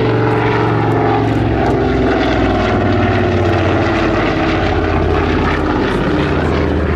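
Avro Anson's twin Armstrong Siddeley Cheetah radial engines and propellers running in a display flypast, a steady loud drone whose pitch falls as the aircraft passes and turns away.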